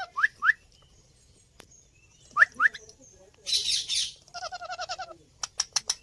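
Ringneck parakeet calling: short rising chirps in pairs, a harsh hissing burst, and a rapid stuttering chatter, followed near the end by a quick run of sharp clicks.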